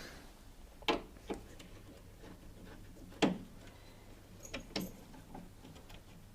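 A handful of short, sharp clicks and knocks from a screwdriver working the two rear screws that hold the top panel of a tumble dryer, the loudest a little past three seconds in.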